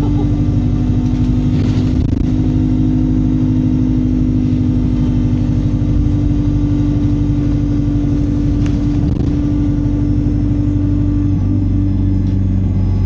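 Bus engine and drivetrain heard from inside the passenger cabin as the bus pulls away and drives on, a steady drone that shifts to a lower tone near the end.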